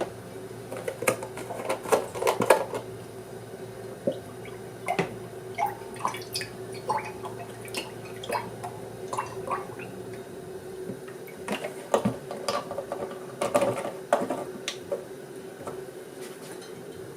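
Dishes and kitchen utensils being handled: irregular light clinks and knocks, a cluster near the start and another about two thirds of the way in, over a steady hum.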